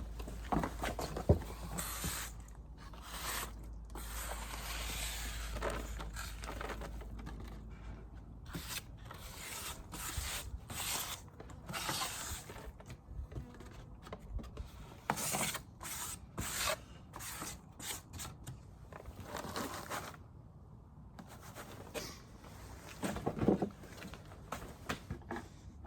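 Frames being pried loose and pulled out of a beehive box: irregular scraping and rubbing on and off.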